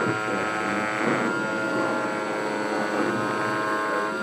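MPCNC router cutting 2 mm craft foam, its Emax 2822 brushless motor driving the cutter at about 6000 rpm. It runs as a steady whine made of several held tones.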